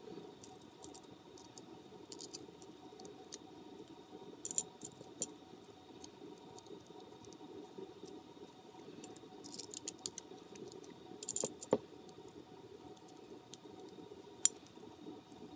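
Scattered small clicks and light rattles of a plastic 80 mm fan frame, its filter guards and small metal M3 screws and standoffs being handled and fitted together by hand, with a few quick clusters of clicks and one sharper click near the end.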